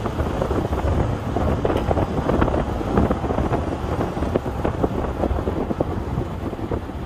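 Wind buffeting the microphone of a phone filming from a moving car, over the low rumble of the car and its tyres on the road, with irregular crackling gusts.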